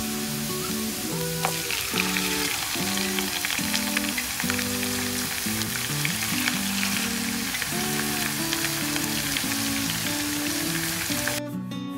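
Minced garlic sizzling and crackling in hot oil in a frying pan, with pieces of marinated sparerib laid into the oil and frying along with it. The sizzling stops abruptly near the end, leaving background music.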